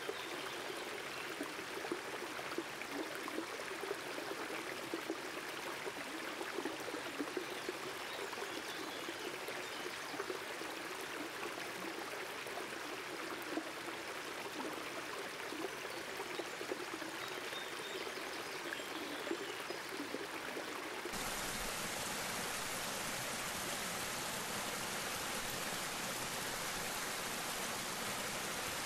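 A shallow creek running over rocks, babbling with small splashes. About two-thirds of the way through it switches abruptly to a louder, steadier rush of water.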